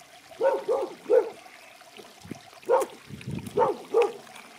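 A dog barking repeatedly: short, sharp barks in two quick runs, one near the start and one in the second half.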